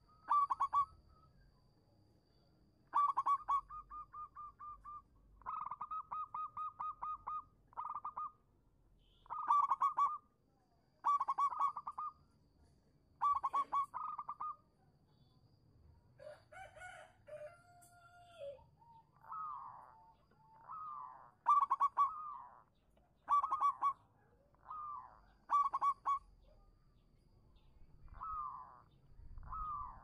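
Zebra dove cooing: repeated phrases of fast rolling notes, about one phrase every one to two seconds. Around the middle, a lower, drawn-out call from another bird cuts in briefly.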